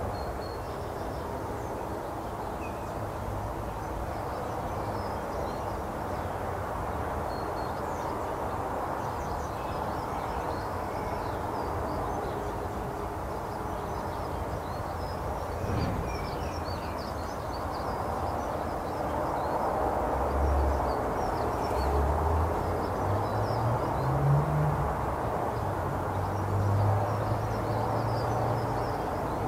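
Outdoor ambience: small birds chirping faintly over a steady background hum, with a low drone swelling and fading in the second half.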